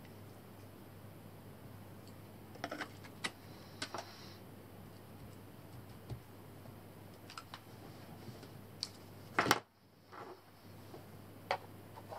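Scattered clicks and knocks of a hard camera housing being handled and pushed onto a riflescope's eyepiece, with the loudest knock about nine and a half seconds in.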